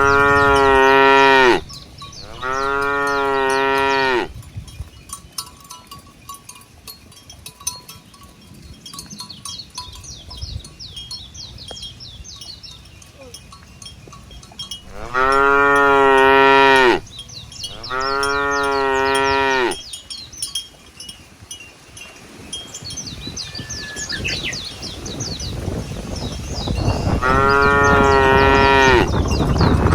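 Cattle mooing: long, level calls of nearly two seconds each, coming in pairs three times, with quieter stretches between.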